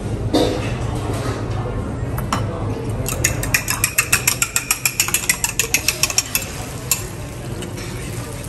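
A fork beating eggs in a small ceramic bowl: a fast run of clicks against the bowl, about eight a second, for a few seconds in the middle, then slowing to a few scattered taps, over a steady low hum.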